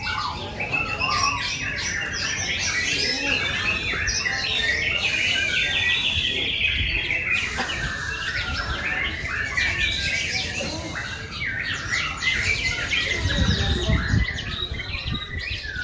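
Many caged songbirds singing at once in a contest, their fast, varied song phrases overlapping without a break.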